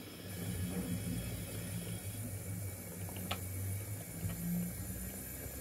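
O gauge model goods train of coal wagons and brake van rolling past on the track: a steady low rumble of wheels on rail, with a few sharp clicks, the clearest about three seconds in.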